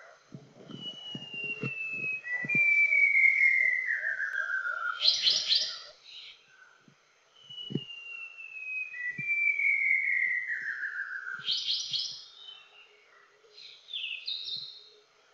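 Male white-browed shama singing: two phrases, each a long, slow descending whistle that ends in a quick burst of higher notes, then a short high phrase near the end.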